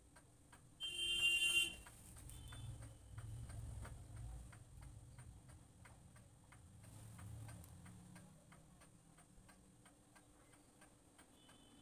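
Faint, steady, evenly spaced ticking, with a brief pitched tone about a second in and a soft low rumble of handling noise after it.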